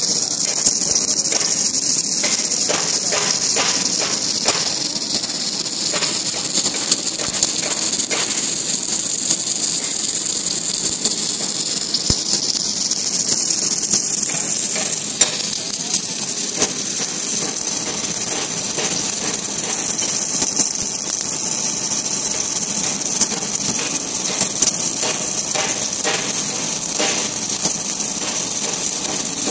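Automatic submerged-arc welding head running a weld along a steel plate under granular flux: a steady high hiss with scattered crackles and clicks.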